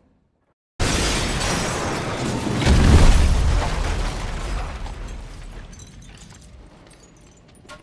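An explosion sound effect: a sudden blast just under a second in, a second, deeper boom around three seconds, then a long rumble that fades away.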